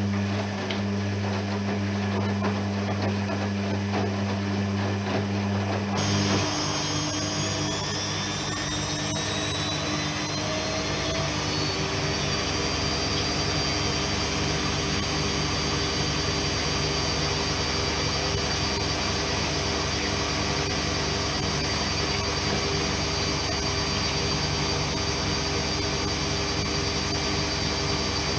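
Privileg 3020 front-loading washing machine: a steady low hum for the first few seconds, then the drum motor winds up into a spin, its whine rising in pitch for about six seconds before holding steady at speed.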